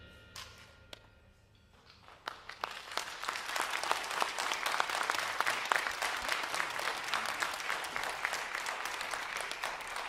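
The last of a concert band's final chord fades away, then an audience starts applauding about two seconds in, building to steady clapping with one person clapping close by.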